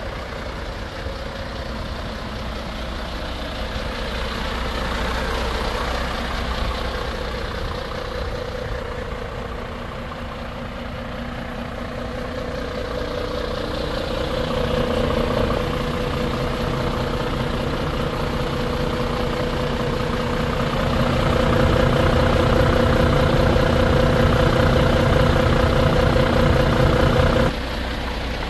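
Mercedes-Benz Antos truck's diesel engine idling steadily, louder past the middle, then dropping suddenly near the end.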